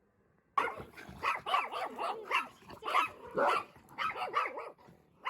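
A dog barking in a rapid string of excited, yelping barks, starting about half a second in.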